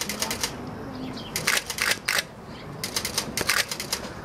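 Giant anteaters' claws scraping and tapping on a plastic crate as a baby wrestles with its mother: about five short bursts of rapid clicking and scratching.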